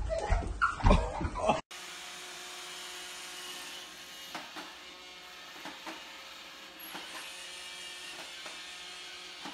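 Robot vacuum running with a steady motor whir and a few faint ticks. It starts after a brief burst of loud voices and laughter that cuts off sharply under two seconds in.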